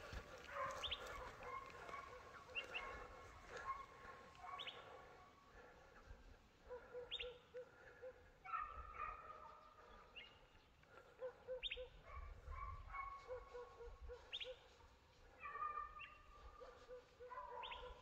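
Hunting dogs baying in the distance while running a rabbit, a faint call every second or two, about a dozen in all, each a short yelp that rises sharply and then holds.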